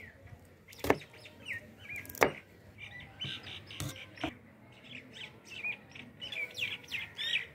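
Small birds chirping repeatedly in the background, with a knife striking a wooden cutting board sharply twice, about one and two seconds in.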